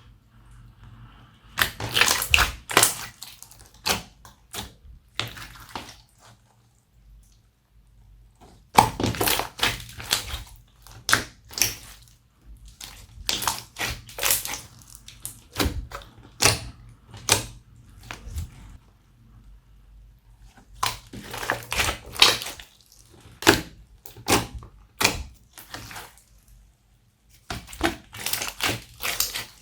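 Homemade slime being kneaded and squished by hand, making clusters of sticky clicks, crackles and pops with short pauses between them.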